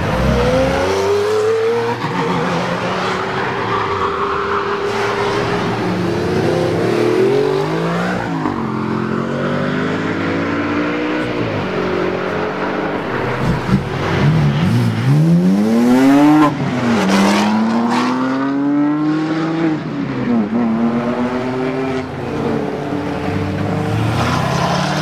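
Sports car engines revving hard as several cars accelerate down a race track straight. The pitch climbs, drops at each upshift and climbs again, with the loudest, fastest-rising run about two thirds of the way through.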